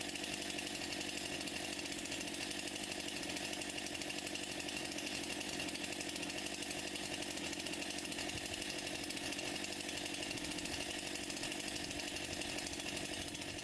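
Stihl MS261 C-M two-stroke chainsaw running at a steady, unchanging engine speed during its first run as a new saw.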